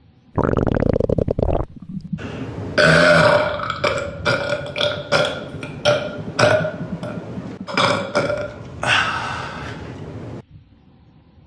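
A person burping. A short rattling burp comes about half a second in, then a long drawn-out burp of about eight seconds that swells and breaks in repeated surges and cuts off suddenly near the end.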